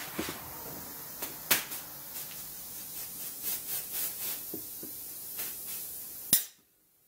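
Compressed air hissing from an air-gun grip installation tool as a rubber golf grip is worked onto the shaft, with scattered clicks and knocks from handling the tool and club. The sound stops abruptly after a sharp click about six seconds in.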